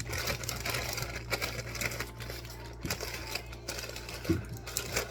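Grocery packaging being handled and wiped, a busy crackly rustle with a few light knocks, over a steady low hum.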